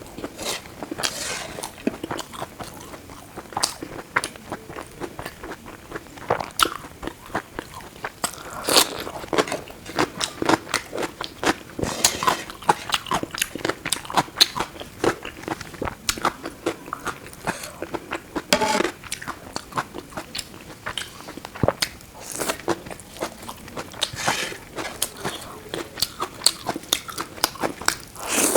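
Close-miked eating: a person chewing food with many small, crisp crunches and clicks at an irregular pace.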